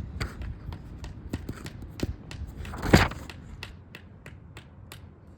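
Motor oil being poured from a bottle into a new oil filter to fill it halfway, with a run of small glugs and clicks and one louder knock about three seconds in.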